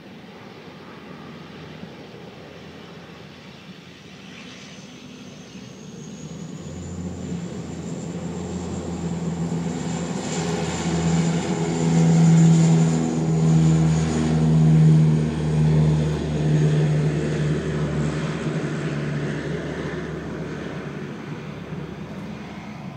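Light propeller seaplane's engine growing louder as it comes in and skims along the lake at high power, loudest and pulsing midway, then fading as it climbs away again in an aborted landing.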